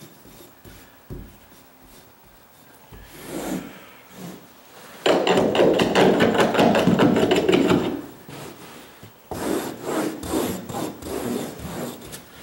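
Carpet being worked into the gap at the baseboard with a small hand carpet tool: quick scraping, rubbing strokes of tool against carpet backing and tack strip. The strokes start about five seconds in, pause briefly, and pick up again about a second later.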